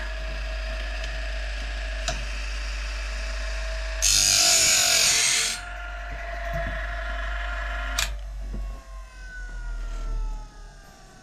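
Electric grinder of a saw-blade sharpener running steadily, with a loud burst of grinding-wheel hiss about four seconds in as the wheel takes the final pass on a tooth. About eight seconds in it clicks off and the motor spins down with a falling whine.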